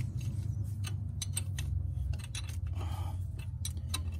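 A 3/4-inch wrench turning the bolt of an injector-cup installer tool, which presses a new injector cup into a 7.3L diesel head: a run of irregular light metallic clicks and ticks over a steady low hum.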